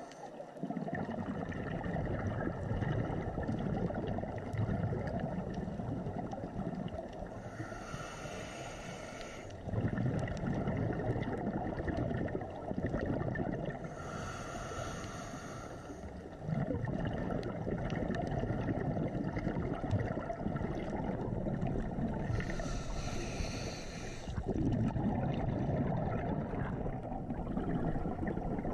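Scuba diver breathing through a regulator underwater, heard through a waterproof camera housing. Long bubbling exhalations alternate with short hissing inhalations, three inhalations in all.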